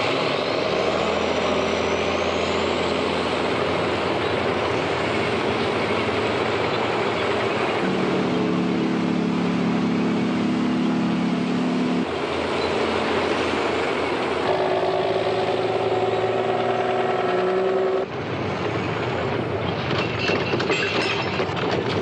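Heavy demolition machinery, a big-wheeled earthmover and trucks, running and rolling in as one dense, loud, continuous rumble of engines. There are two stretches of steady droning tones in the middle.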